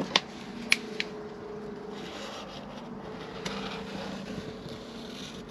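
A felt-tip marker scratching around a metal sea strainer cover laid on gasket board, tracing the outline for a new gasket, with three sharp clicks in the first second as the cover is handled. A steady low hum runs underneath.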